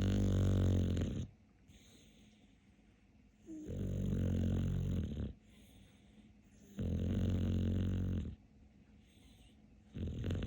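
Dog snoring in its sleep: long, low snores about every three seconds, each lasting a second or more, with quiet breathing between them. The fourth snore starts near the end.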